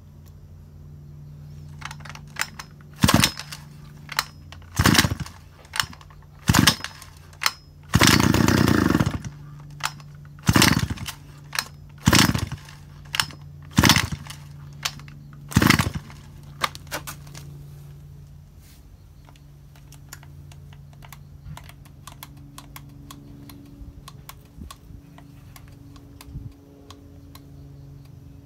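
Shindaiwa two-stroke chainsaw engine idling with its covers off while the throttle is worked by hand at the carburettor, giving eight short revs, one of them held for about a second. After the revs stop the engine note fades away: the engine runs.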